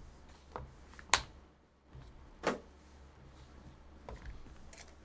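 Hard plastic card holders and a card case knocked and clicked on a tabletop as pulled cards are handled. There is a sharp click about a second in, the loudest sound, and a duller knock about two and a half seconds in.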